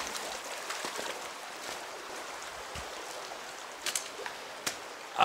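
Steady rush of the shallow, muddy Paria River flowing, with a couple of short clicks about four seconds in.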